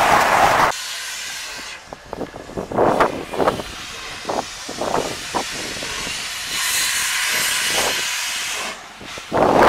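LMS Black Five steam locomotive 44932 letting off steam: hissing from its open cylinder drain cocks, with a run of irregular sharp exhaust blasts in the first half and a loud blast again near the end. Under a second in, the noise of a passing train cuts off.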